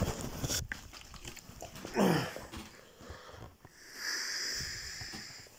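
A man's short groan, falling in pitch, about two seconds in, then a long breathy hiss near the end: frustrated sounds while a video stalls on buffering.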